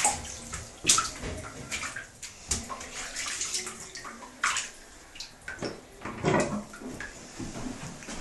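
Shallow bathwater splashing and sloshing in a tub in irregular bursts as a Cavalier King Charles spaniel puppy is lathered and washed by hand, with a few sharper splashes.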